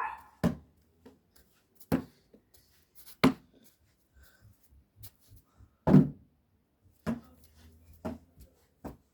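Basketball bouncing on hard ground: a series of separate dull thuds about a second or more apart, the loudest about six seconds in.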